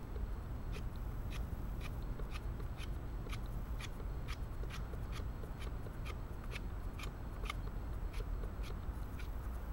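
Meru linerlock folding knife carving shavings from a stick of fresh green wood: short crisp slicing strokes in an even rhythm, about two a second, over a steady low rumble.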